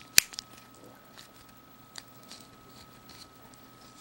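Metal clicks from a Leatherman Crunch multitool being handled and opened: one sharp click just after the start, then a few fainter ticks.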